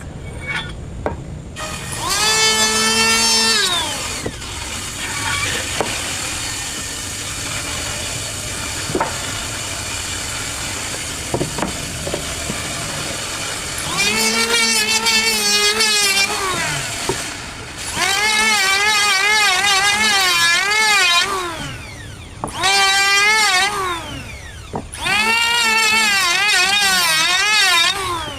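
Electric wood planer running, with a wavering whine each time it cuts a pass along a board, five passes in all, and a steadier running sound between them.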